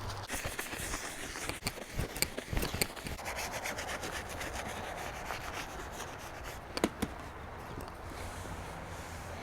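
Scrubbing on a vinyl bench pad: a steady rubbing, with a cluster of sharp clicks about two seconds in and one more near seven seconds.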